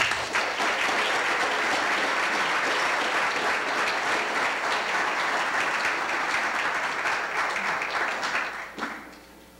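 Audience applauding, steady, then dying away about a second before the end.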